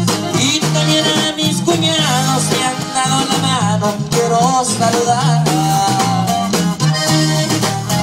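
Live norteño band playing a corrido: accordion melody over steady bass notes and drums, with a man singing into a microphone.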